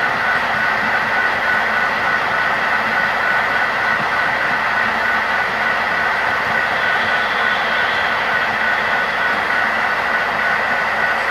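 HO scale model grain train of covered hopper cars rolling past, a steady even rumble of small wheels on model track with a faint constant hum.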